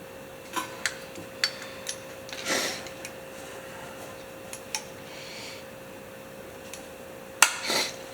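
Hand tools clicking and tapping on metal carburetor parts, with two short scraping sounds and one sharp click near the end, while a stuck part is being worked loose.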